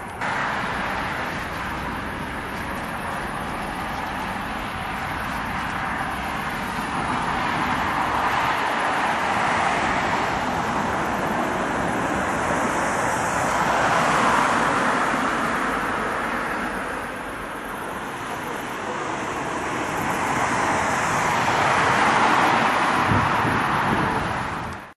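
Road traffic rushing past: a steady noise of passing cars that swells louder twice, around the middle and near the end, then cuts off abruptly.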